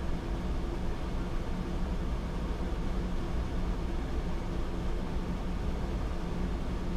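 Steady flight-deck noise of a Boeing 787-9 Dreamliner taxiing: a low rumble under an even hum, with faint steady tones.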